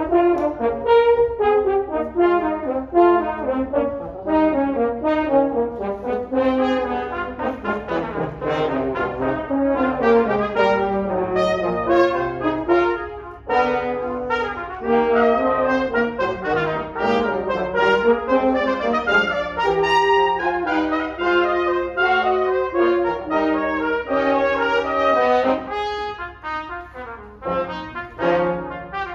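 Brass ensemble of trumpets, French horn, trombones and tuba playing together in fast-moving parts, with a short drop in loudness about halfway through.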